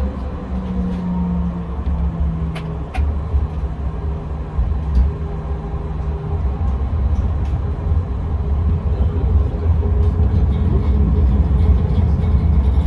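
Tram heard from inside while running on rails: a steady low rumble from the wheels and running gear, with a traction-motor hum that drops in pitch over the first couple of seconds and then holds steady. A few short clicks come through, and the rumble grows louder over the last few seconds.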